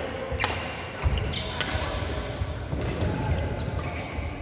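Badminton doubles rally on a wooden court: several sharp racket strikes on the shuttlecock a second or so apart, with shoes squeaking and feet thudding on the floor.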